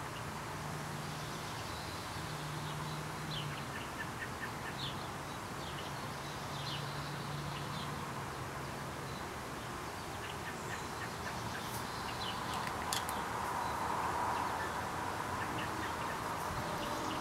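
Small birds chirping in short, repeated high calls over a steady outdoor background hum.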